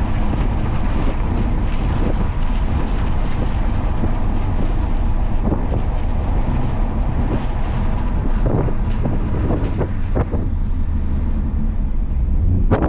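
Onboard sound of a car being driven on a race track: steady engine and road noise with wind buffeting the microphone. From about two-thirds of the way in, a scatter of short sharp knocks or rattles.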